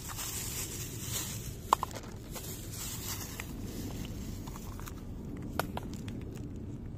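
Two cats eating wet cat food from shallow plates, with soft chewing and smacking. A few sharp clicks stand out, a pair about two seconds in and another pair near six seconds, over a steady low background noise.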